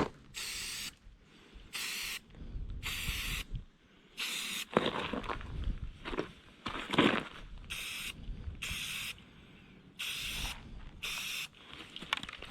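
Aerosol spray paint can spraying in a series of short bursts, each under a second, with handling knocks and scrapes between them.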